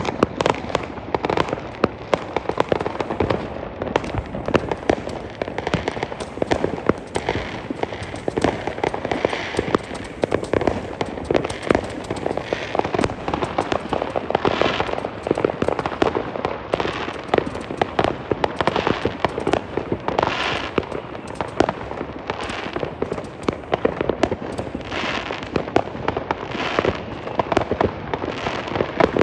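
Fireworks and firecrackers going off in a dense, continuous barrage of bangs and cracks, with short hissing bursts every second or two.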